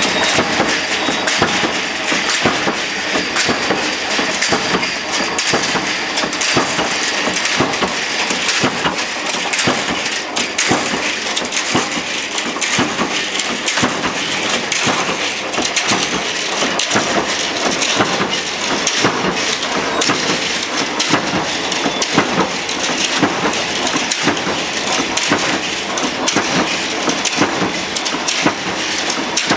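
Open-back mechanical flywheel punch press with a strip feeder punching steel strip, a rapid, continuous clatter of press strokes and feeding over the machine's running noise.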